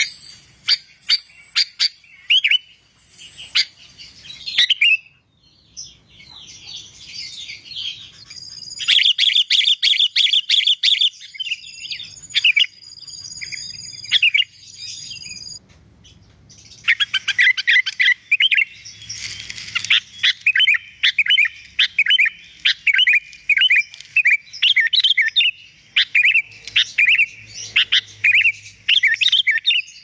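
Sooty-headed bulbul (kutilang) singing. Separate sharp calls come first, then a fast trill of repeated notes about a third of the way in, and in the second half a long string of quick, repeated warbling phrases.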